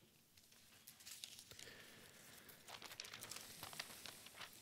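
Faint rustling and crinkling of thin Bible pages being leafed through, starting about a second in.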